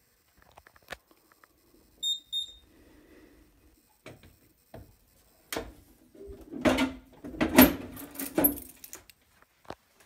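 Two short electronic beeps about two seconds in, then the door of a Simplex 4008 fire alarm control panel cabinet being shut and locked: the metal door clatters and latches, and keys jangle in the lock.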